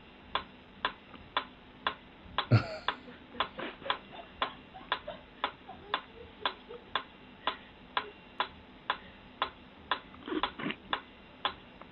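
Steady, regular ticking, about two sharp clicks a second, with a brief voice-like sound twice, once a few seconds in and once near the end.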